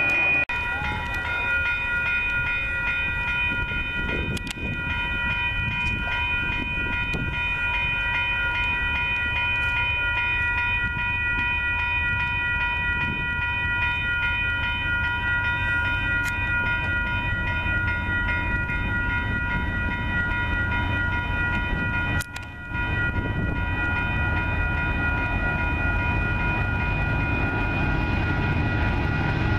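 Railroad crossing bells ringing continuously, with the low rumble of trains on the line underneath.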